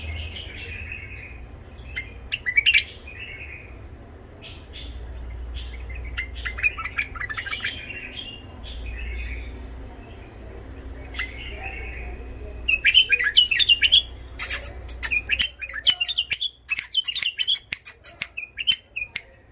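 White-eared bulbul singing in short, repeated, rough-toned chirping phrases. The phrases come faster and louder about two-thirds of the way through.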